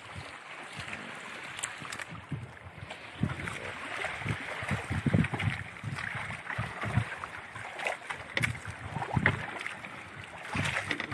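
Water splashing and sloshing against the side of a small fishing boat, with irregular knocks and thumps on the hull as a handline is hauled in.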